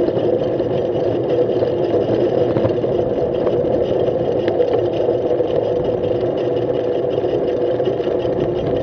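Steady rush of tyres and wind from a bicycle ridden at about 40 km/h on a city road: a constant mid-pitched hum that does not change.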